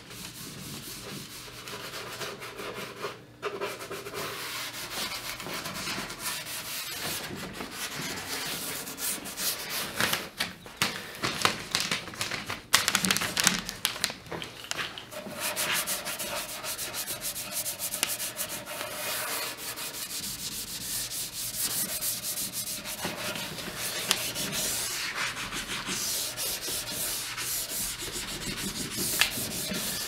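Hand-sanding a pine dresser top with a sanding pad: repeated back-and-forth strokes scraping over the wood grain, heavier and more uneven for a few seconds in the middle.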